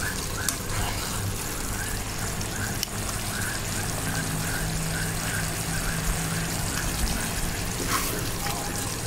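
Thick coconut-milk gravy with shredded banana blossom simmering and bubbling in a wok, a steady run of small pops a few times a second, with a spatula stirring through it and a few sharp clicks. The gravy is cooking down and thickening.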